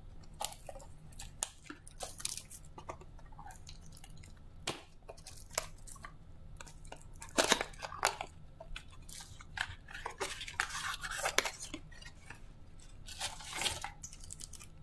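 Foil trading-card packs and a cardboard blaster box handled by hand: irregular rustling, crinkling and light taps, with louder bursts of crinkling about halfway through and again near the end.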